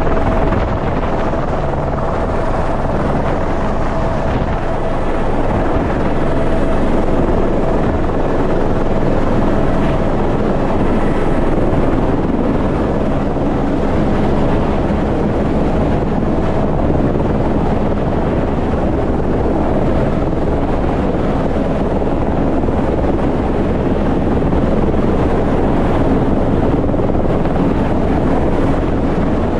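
A steady engine drone with a few low hums, mixed with rushing wind on the microphone, running evenly throughout without letting up.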